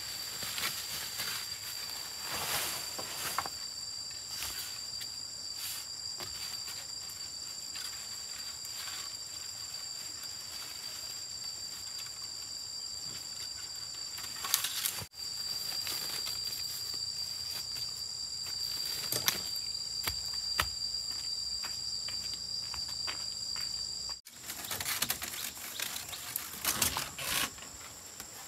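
Insects trilling in a steady high-pitched drone, with scattered clicks and rustles; the sound breaks off abruptly twice.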